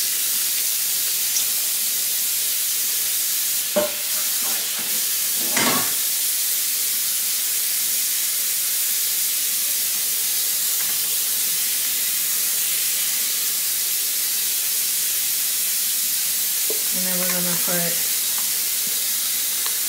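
Chicken and broccoli stir-fry with its broth mixture just added, sizzling steadily in a hot pan while being stirred. There is a single sharp knock about four seconds in.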